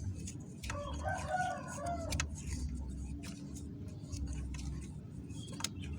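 A rooster crowing once, starting about a second in and lasting about a second and a half, over a steady low hum and scattered clicks.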